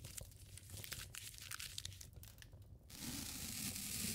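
First-aid supplies being handled: crinkling and tearing of packaging and wrap, a run of small crackles, then a steady hiss about three seconds in that lasts a little over a second.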